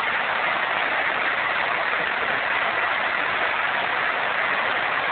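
Steady rush of river water, an even hiss with no change.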